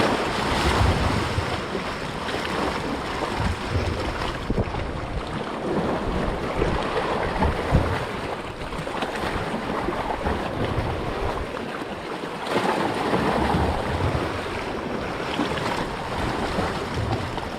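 Wind buffeting the microphone in uneven gusts over the wash of sea water.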